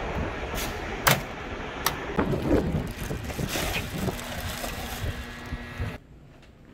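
Outdoor street ambience with wind on the microphone and two sharp knocks less than a second apart. About six seconds in it cuts abruptly to quiet indoor room tone.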